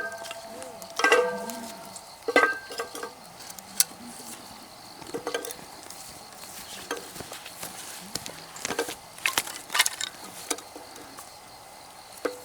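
Metal pieces clinking against each other, three ringing clinks in the first few seconds, then scattered light knocks and clicks of gear being handled.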